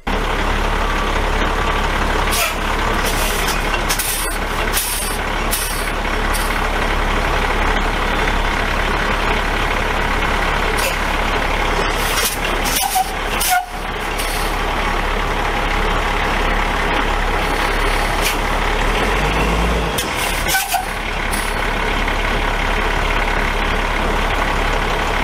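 2003 International 4300 garbage truck driving on the road, heard from under its body: a steady loud rush of road and wind noise over the running truck, with a few short knocks, most clearly about 13 and 20 seconds in.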